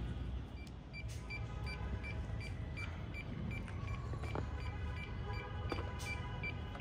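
Drone remote controller beeping: short, high electronic beeps nearly three times a second, starting about a second in, with a few clicks from the controller and case being handled.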